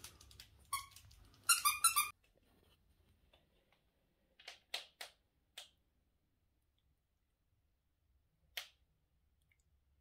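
A dog toy's squeaker being squeezed, several quick high squeaks in a row in the first two seconds. It stops abruptly, and a few short clicks follow later.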